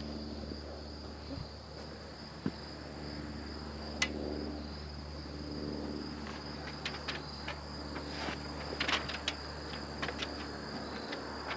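Insects chirring steadily in a high, even band over a low steady hum, with scattered sharp clicks and taps in the second half.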